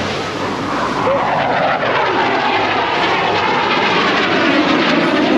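Blue Angels F/A-18 Super Hornet jet flying past, its engine roar growing louder and sweeping in pitch, over the noise of the boat running through chop.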